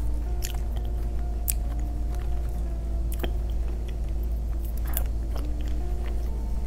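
Close-miked eating sounds: a spoon cutting into a soft chocolate-glazed cake, then chewing and biting with scattered wet mouth clicks. A steady low hum runs underneath.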